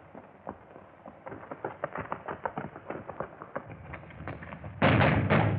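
Galloping horses' hoofbeats, a rapid, irregular clatter that grows louder, then two loud gunshots about half a second apart near the end.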